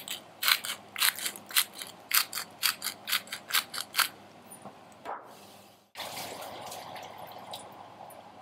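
Pepper mill being twisted by hand over raw chicken: a quick run of short gritty grinding cracks, about two or three a second, that stops about four seconds in. A faint steady hum follows.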